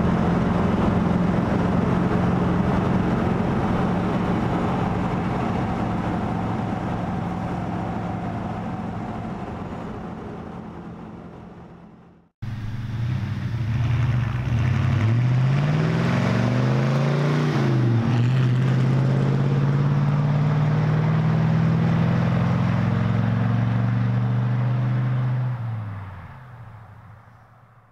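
Engine of a 1970 Ford F-250 4x4 truck running steadily at highway cruise, heard from inside the cab, fading out about twelve seconds in. The truck is then heard from the roadside as it accelerates past: the engine note climbs, drops once as it shifts up, climbs again as it pulls away, and fades near the end.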